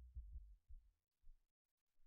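Near silence: a faint low rumble with a few soft low thumps dies away over the first second or so, then dead silence.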